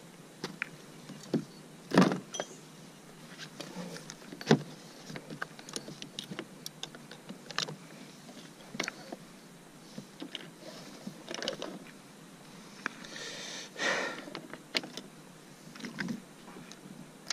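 Fishing tackle handled on a kayak: scattered clicks, knocks and rustles from a mesh tackle bag, pliers and rig, with the loudest knock about two seconds in. A noisier sound lasting about a second comes near the end.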